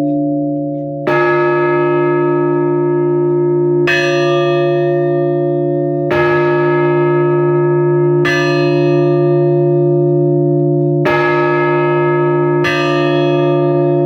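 Russian Orthodox church bells tolling for a funeral service: six slow strokes, two to three seconds apart, each ringing on under the next.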